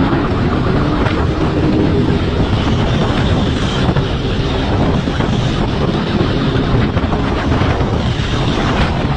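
Motorcycle riding at speed: the engine running under heavy wind rush on the microphone, with a siren's wail dying away just at the start.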